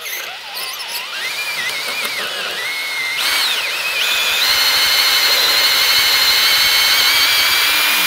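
Cordless drill boring a twist bit through the brass tumblers of a laminated steel Master Lock padlock. The bit gives a high whine that wavers in pitch at first, then holds steady and gets louder from about four seconds in.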